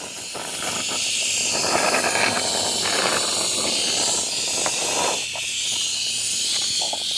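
Can of expanding spray foam sealant hissing steadily as foam is dispensed into leaking gaps in a pond waterfall.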